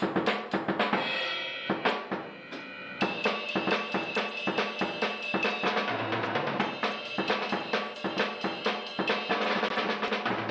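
Acoustic drum kit played hard and fast, with rapid strikes on snare and bass drum and crashing cymbals, plus a ringing tone that holds for a few seconds at a time.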